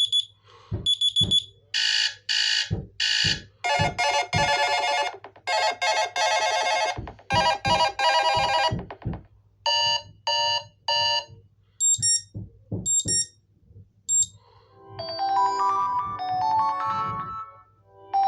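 Cricket Outlast 5G phone's built-in alarm tones played one after another through its speaker: about seven short electronic beep, chirp and chime patterns, each cut off abruptly after a second or a few seconds as the next begins. Short low thuds sound between and under the tones, over a faint steady low hum.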